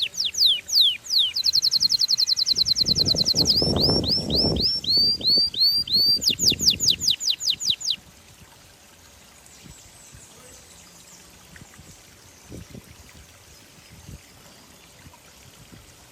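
A songbird singing loud, rapid trills: runs of quickly repeated falling whistled notes, a fast even buzzing trill and a series of hooked notes, for about eight seconds before it stops. A low rumble sits under the middle of the song, and after the song only a faint background hiss remains.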